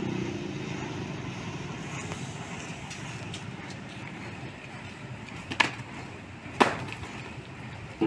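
Two sharp wooden knocks about a second apart, heavy timber planks or blocks being knocked or set down, over a steady engine running.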